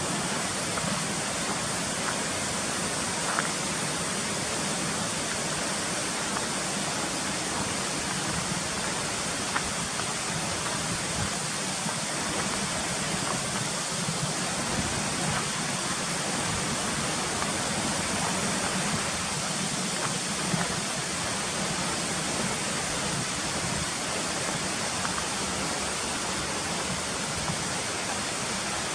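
Steady rush of water in a mountain gorge, even and unbroken, with a few faint clicks.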